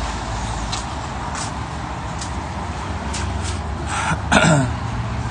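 Steady city street traffic noise with scattered light clicks. About four seconds in, a person clears their throat once, briefly and close to the microphone.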